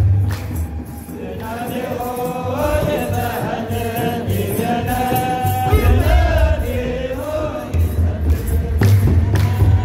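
Ethiopian Orthodox clergy chanting a wereb hymn together in long, slowly gliding notes, over a deep drum beat and jingling sistrums. The drum thins out for a few seconds in the middle and comes back strongly near the end.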